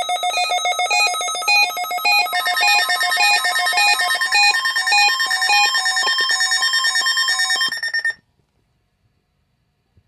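Several NOAA weather radio receivers sounding their alert alarms at once for a Required Weekly Test: overlapping electronic beeps and steady tones at several pitches, each repeating rhythmically, then all cutting off abruptly about eight seconds in.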